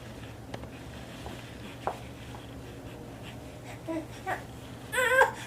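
Baby vocalizing in short wavering high-pitched cries near the end, after a few faint clicks over a low room hum.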